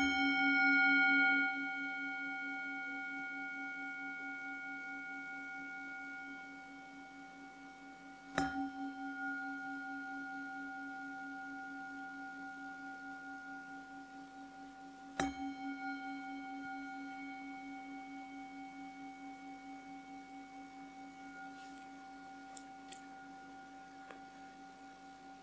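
Singing bowl struck three times, about seven to eight seconds apart. Each strike rings on in a low tone with several higher overtones, wavering slowly as it fades.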